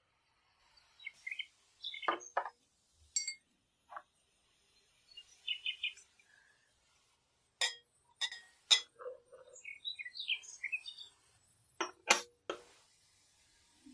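A metal spoon clinks and taps several times against a glass measuring jug as cocoa powder is added to the sugar inside, with birds chirping faintly in the background.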